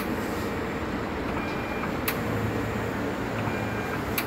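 Steady mechanical hum with a sharp click about every two seconds and a short, faint high tone between the clicks, repeating in a regular cycle.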